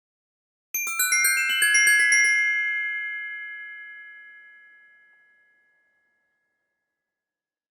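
Glockenspiel: a quick run of about a dozen struck metal-bar notes over a second and a half, starting just under a second in. The bars then ring on and fade away over a few seconds.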